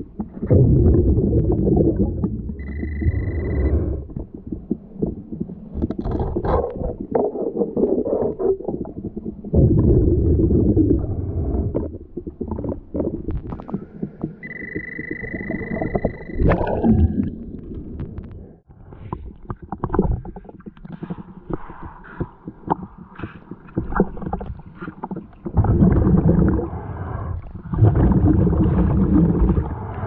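Underwater rumbling and bubbling of churning waterfall water against a submerged camera, coming in surges. Two steady high beeps, one about 3 s in and a longer one about 15 s in, typical of an underwater metal detector signalling a target.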